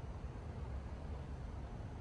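Steady low rumble of a moving vehicle: road and engine noise, with no sudden sounds.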